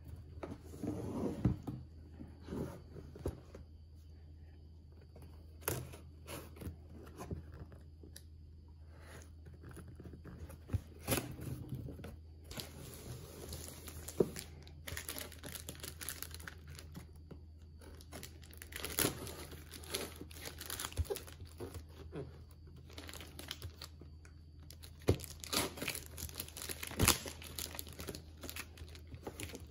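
Hands handling a cardboard shipping box: plastic and packing tape crinkling, the rasp of tape being pulled, and scattered taps and knocks on the cardboard.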